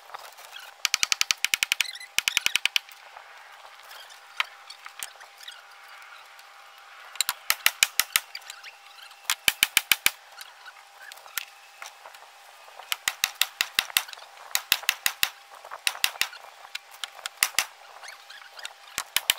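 Hammer blows on a wooden beam frame: about ten short runs of quick, sharp strikes, roughly eight to ten a second, each run lasting about a second.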